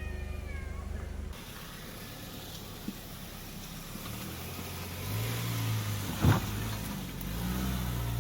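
Off-road vehicle's engine running, growing louder again after a sudden drop a second in, with one sharp knock a little past the middle.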